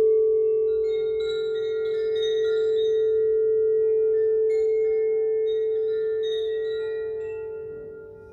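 Crystal singing bowls ringing: one steady hum holds throughout, while higher, lighter tones come in about a second in and overlap above it. The whole fades near the end.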